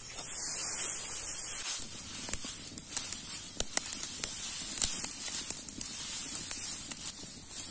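Dry straw rustling and crackling as it is handled and spread by hand over a stone bed, with many small sharp crackles.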